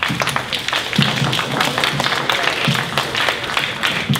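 A roomful of people applauding steadily: many hands clapping at once in a dense patter.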